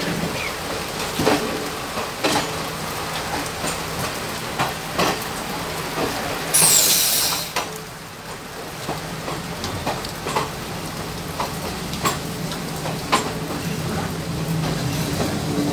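Passenger train running along the rails, with a steady wet hiss, scattered sharp clicks and knocks, and a low steady hum. About seven seconds in there is a loud hiss lasting about a second, with a high whistle falling in pitch.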